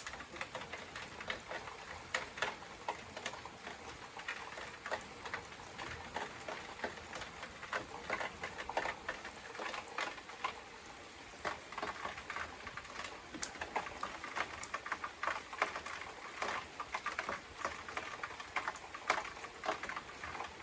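Rain falling in a steady patter, with many individual drops tapping close by at irregular moments.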